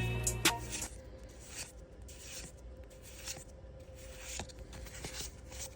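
Background music trails off in the first second, then faint rubbing and rustling with light ticks: Pokémon trading cards and their packaging being handled.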